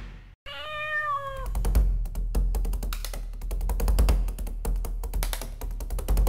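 A cat's single meow, about a second long and slightly arching in pitch, right after a brief gap of silence. Then music with busy, quick tapping percussion takes over.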